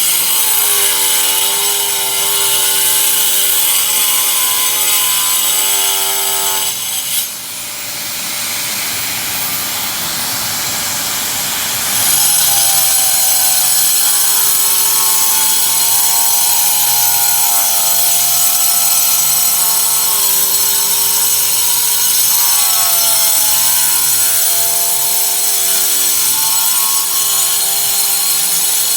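Handheld power tool motor running while cutting, its pitch sagging and recovering as the load changes. About seven seconds in it turns quieter and rougher for about five seconds, then comes back loud.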